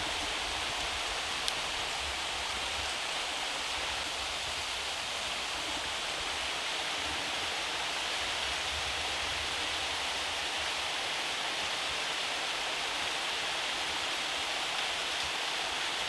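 Small forest stream running steadily, water splashing over stones into a shallow pool, with one faint click about a second and a half in.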